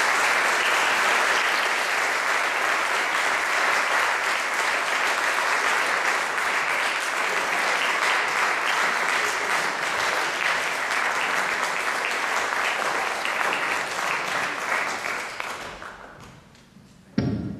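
An audience applauding steadily, dying away about fifteen seconds in, followed by a single short thump near the end.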